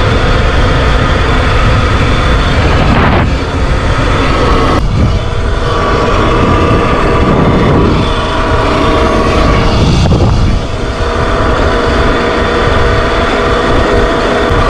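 Sur-Ron X electric dirt bike ridden at road speed: wind buffeting the microphone, with the electric motor's steady whine on top, its pitch shifting slightly a few times.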